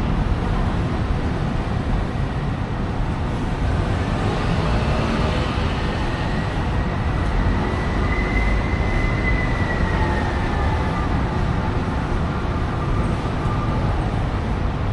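Train running with a steady low rumble, and a faint high whine that rises and then falls in pitch through the middle.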